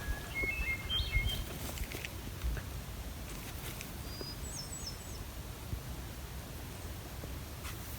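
Songbird singing: a short phrase of clear whistled notes near the start, then a higher, quicker phrase about halfway through, over a steady low rumble.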